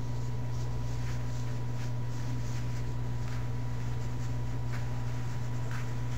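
Faint soft rustling of a terry-cloth bath towel being rolled and handled, over a steady low hum that is louder than the rustles.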